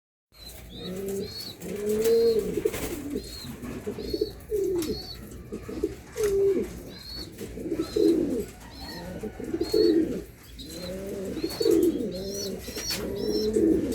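German beauty homer pigeons cooing, with low, arching coos repeating and overlapping. Short high chirps come every second or so, more often near the end.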